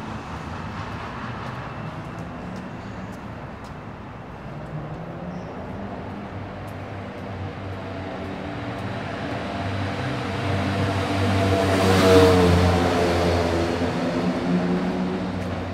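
City street traffic with a motor vehicle's engine approaching, passing close at its loudest about twelve seconds in, then moving away.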